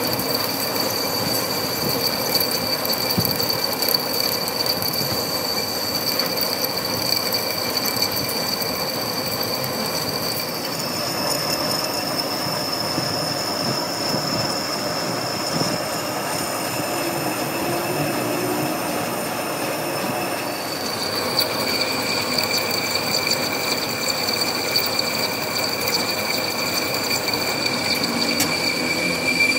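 A machine tool cutting metal: a steady high-pitched squeal over harsh cutting noise. The squeal steps up in pitch about ten seconds in and drops back about ten seconds later, and the sound stops sharply at the end.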